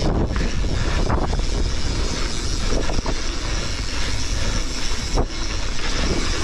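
Mountain bike riding fast down a dirt trail: tyres rumbling over dirt and leaves under heavy wind noise on the microphone. A few sharp knocks come as the bike hits bumps.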